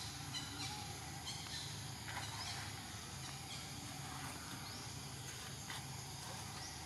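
Outdoor ambience: a steady insect drone with a few short, high chirping calls now and then.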